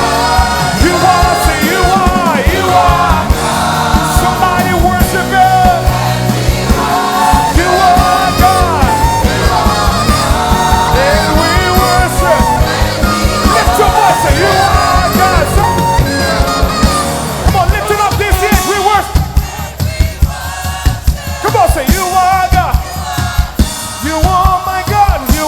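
Live gospel worship music: singers over a full band with drums. After about 18 s the held chords drop back, leaving the voices over sharper drum hits.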